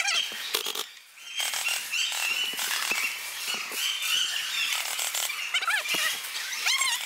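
Busy indoor airsoft play: scattered clicks and snaps with repeated short, high squeaks that rise and fall, echoing in a large hall.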